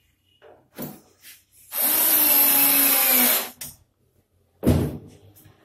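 Cordless drill-driver running steadily for under two seconds as it drives a screw into a melamine frame, then stopping abruptly. A few light knocks come before it and a thump near the end.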